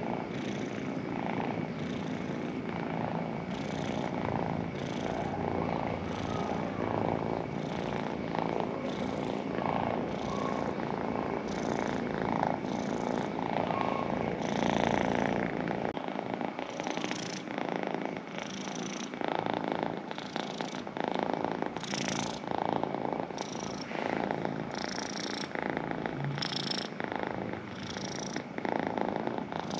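A cat purring, a steady rumble that swells and eases with each breath, about once a second.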